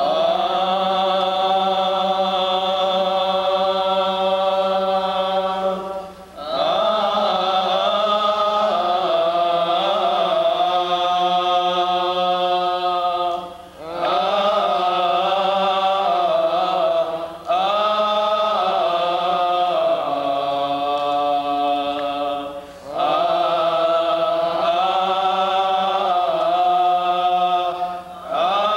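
Coptic liturgical chant: long, drawn-out sung phrases with the pitch winding over held vowels, broken by short pauses for breath every few seconds.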